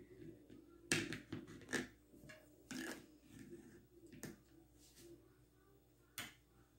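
Table knife and fork clinking and scraping against a ceramic plate as a cake is cut and a slice is lifted out: about five short, sharp sounds spread over a few seconds.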